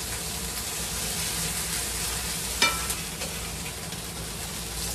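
Slices of beef tongue and kimchi sizzling steadily in beef tallow on an electric grill plate. About halfway through there is one sharp metallic clink of the tongs against the plate.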